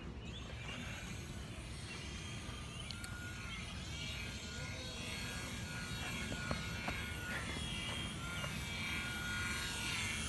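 Small electric rotor motor of a flying Spider-Man toy helicopter whirring as it hovers. Its thin whine shifts up and down in pitch as the speed changes, and it grows slowly louder.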